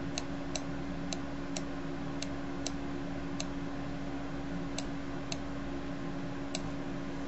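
Computer mouse button clicking about ten times at irregular intervals as strokes are drawn with the mouse, over a steady low electrical hum.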